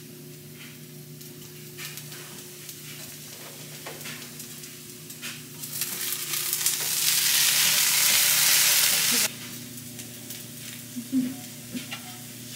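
Food frying in pans on a stovetop, scrambled eggs in butter among it, with light taps and scrapes of a utensil as it is stirred. About six seconds in the sizzling swells to a loud hiss for about three seconds, then cuts off suddenly.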